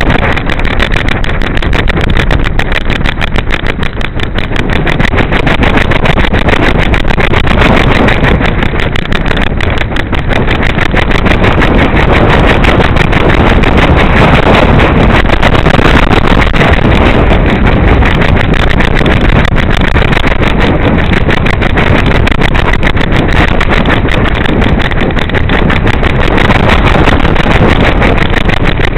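Loud, steady rush of wind buffeting a small camera strapped to a flying pigeon, with a fast fluttering texture throughout.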